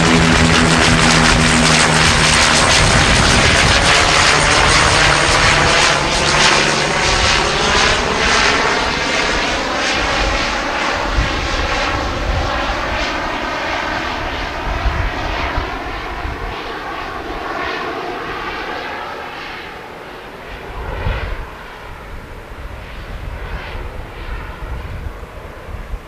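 Bombardier DHC-8-Q100 twin-turboprop airliner climbing away just after passing overhead on a touch-and-go: a steady propeller drone, loudest at the start, whose tone sweeps as it passes and then fades steadily as it recedes. Gusts of strong wind buffet the microphone.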